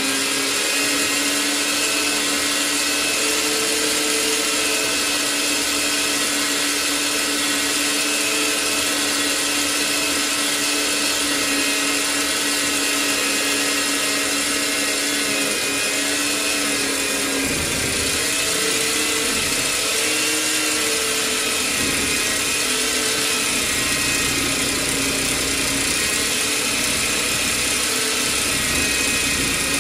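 Parkside portable metal band saw running under load, its blade cutting through a rusty steel bar, with a steady motor whine. About 17 seconds in, a lower rumble joins underneath.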